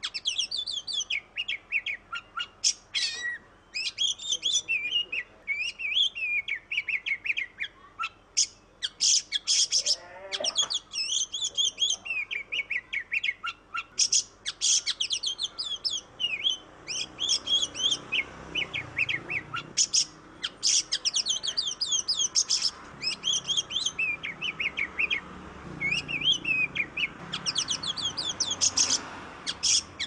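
Oriental magpie-robin (kacer) singing without let-up: a rapid, varied run of chirps, trills and gliding whistles with only short pauses.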